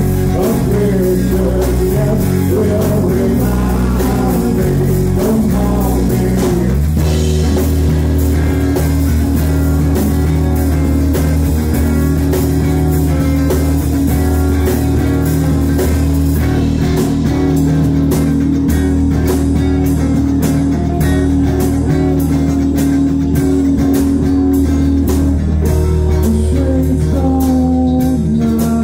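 A rock band playing live, with electric guitar, bass and drums.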